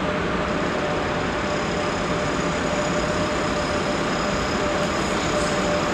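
DB class 103 electric locomotive pulling out slowly: a steady drone with a thin high whine from its motors and running gear.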